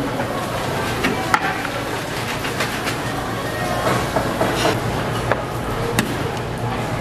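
Kitchen clatter: scattered clinks and knocks of metal utensils and dishes over a steady low hum.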